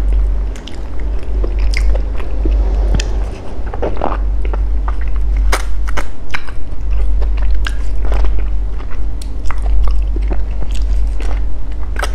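Close-miked biting and chewing of soft fresh durian flesh: mouth noises with many short, sharp smacks and clicks, over a steady low hum.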